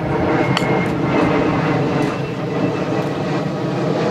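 Steady engine drone with many even overtones, with a few faint clicks over it.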